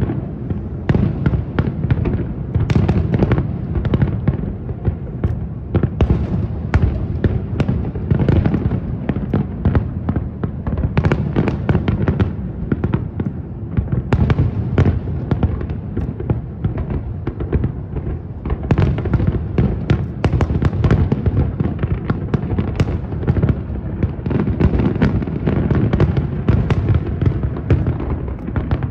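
Fireworks display: aerial shells bursting in a dense, unbroken barrage, many bangs a second over a constant low rumble.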